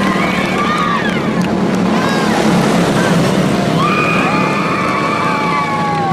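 Several quarter midget race cars running laps together, their small engines' pitch rising and falling as they throttle through the turns and past. Near the end one engine holds a steady note, then drops as it lets off.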